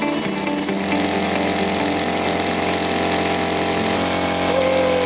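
Air-cooled 2.5 hp Sea Dog gas outboard running steadily as it pushes a small pontoon boat; guitar music fades out in the first second.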